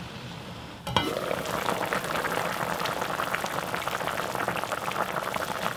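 Soy-braised chicken stew at a rolling boil in a pot over high heat: dense bubbling and popping, muffled under the lid at first, then jumping much louder with a click about a second in as the lid comes off.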